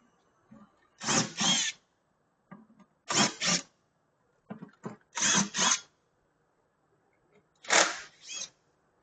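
A power drill run in short paired bursts, four times, about two seconds apart.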